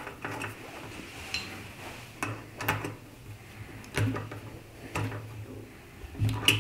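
Socket tool on the bolt that holds the float bowl of a Predator 212 carburetor, giving irregular small metallic clicks and taps, about one every second or so, as the bolt is run in and snugged down.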